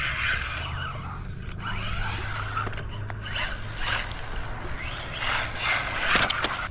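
MJX Hyper Go H14MK RC truck's tyres scrabbling and spinning on loose gravel in repeated bursts as it is throttled, with a low steady rumble underneath.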